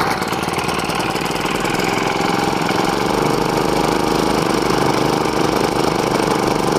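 Honda four-stroke brush cutter engine running steadily, its silencer and spark plug just cleaned of carbon that had been causing hard starting.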